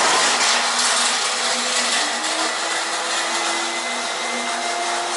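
A motor running steadily, giving a whirring hiss with a hum, its pitch stepping up slightly about two seconds in.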